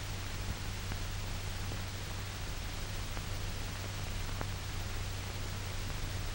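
Steady hiss with a low hum and a few faint clicks: the background noise of an old film soundtrack, with no other sound on it.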